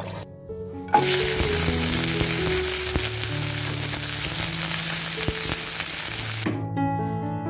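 Chilies, tomatoes, garlic and shallots sizzling loudly in hot oil in a frying pan. The sizzle starts suddenly about a second in and cuts off near the end.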